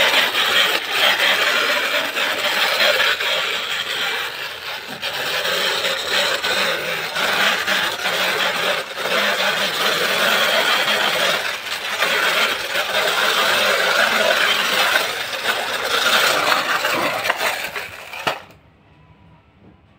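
Plastic toy tanker truck rolled across a tile floor, its plastic wheels and body giving a steady clattering rattle. The noise cuts off abruptly shortly before the end.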